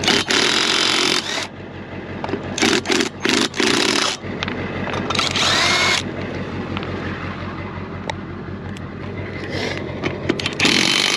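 Cordless impact wrench hammering on a car wheel's lug nuts in four bursts: a long one at the start, two about three and five seconds in, and another near the end. A steady low hum runs underneath between the bursts.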